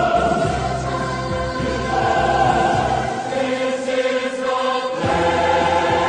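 Background music with a choir singing held chords over a low accompaniment; the low part drops out for about two seconds past the middle, then returns.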